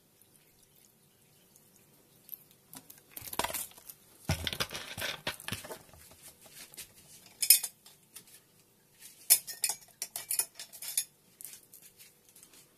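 Glassware and kitchen utensils being handled: scattered clinks and clatters in short bursts starting about two seconds in, with one sharp knock, the loudest sound, about halfway through.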